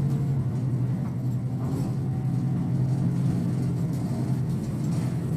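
On-board running sound of a Hino Poncho small bus: its diesel engine drones steadily under way, with road noise in the cabin. The engine note eases a little about a second in and firms up again near the middle.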